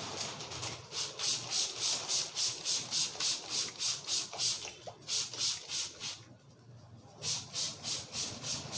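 Hands rubbing briskly over hair and scalp in a head massage, a rhythmic brushing at about four strokes a second that pauses for about a second past the middle, then starts again.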